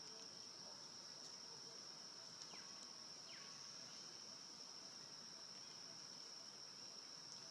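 Faint, steady, high-pitched insect chorus held on one shrill note, with two brief faint falling chirps about two and a half and three seconds in.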